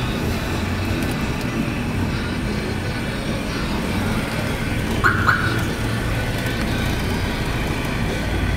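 Car running at low speed, heard from inside the cabin as a steady low rumble of engine and road noise. A brief high-pitched double chirp comes about five seconds in.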